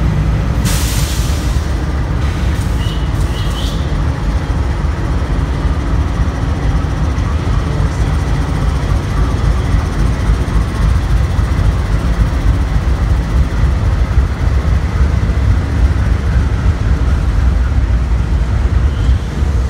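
CSX freight train's diesel locomotives passing, a loud, steady low rumble of engines and wheels on the rails. A couple of brief high squeaks come about three seconds in.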